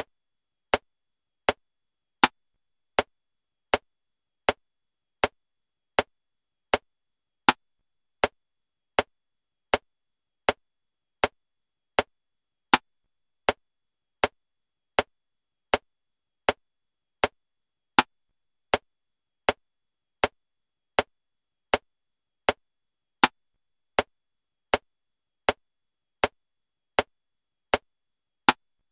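Metronome clicking at 80 beats a minute in 7/4 time: a short, sharp click every three-quarters of a second, with a louder accented click on the first of every seven beats.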